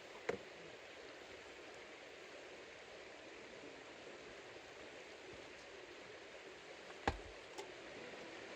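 Steady rushing of a river's flowing water, with two sharp clicks or pops, one right at the start and one about seven seconds in.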